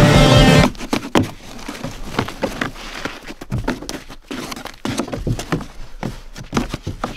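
Rock music cuts off within the first second, then footsteps knock and scuff irregularly on snow-covered wooden stair treads as someone climbs them.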